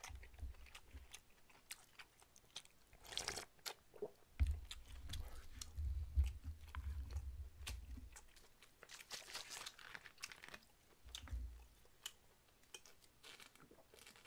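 Close-miked chewing of noodle soup: soft wet mouth sounds and small clicks with a few short slurps. Some low thuds come in the middle.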